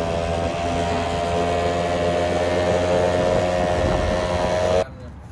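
Honda Gyro X's 50cc two-stroke engine running steadily through an exhaust that sounds fierce, the pitch creeping up a little before the sound cuts off suddenly near the end.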